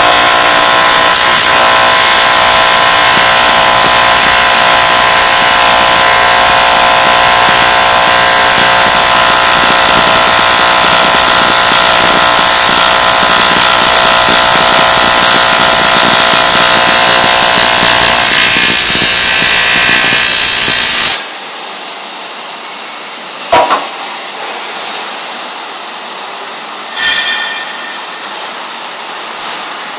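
AC TIG welding arc on aluminium from a Lorch V40 welder: a loud, steady buzz of fixed pitch that cuts off suddenly about 21 seconds in. A softer hiss and a few sharp clicks follow.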